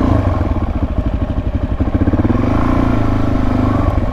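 Dual-sport motorcycle engine running at low speed, its note rising and easing a little with the throttle.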